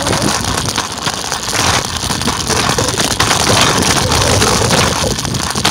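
Scooter ride along a concrete sidewalk: a loud, uneven noise of the wheels rolling and wind buffeting the microphone.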